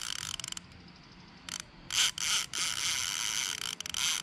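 Baitcasting reel's drag buzzing as a heavy fish pulls line off it: a short burst, a pause of about a second, then spurts that become a steady run. The fish is one the angler takes for a redtail catfish (pirarara), running against a drag set near the line's limit.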